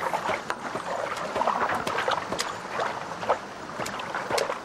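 Shallow stream water splashing and sloshing as several people wade and grope with their hands among the rocks, with scattered sharp splashes and knocks throughout.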